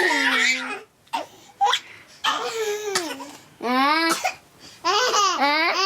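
Young twin children laughing hard in four or five separate bursts, high-pitched and rapidly warbling, with short quiet gaps between them.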